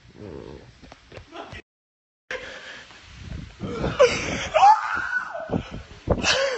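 Handling noise on a phone microphone, with the audio cutting out briefly after about a second and a half. This is followed by loud wordless voice sounds that slide up and down in pitch, and a sharp knock near the end.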